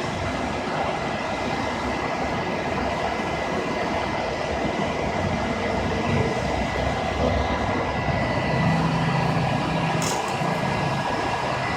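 Conveyor curing dryer for screen-printed garments running: a steady mechanical drone with a constant high whine, and a few short ticks about ten seconds in.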